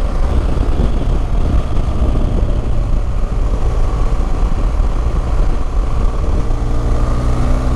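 A 2016 BMW R1200GS Adventure's boxer-twin engine running steadily under way, with wind rush on a helmet-mounted microphone. About six seconds in, the engine's hum settles into a clear, even note.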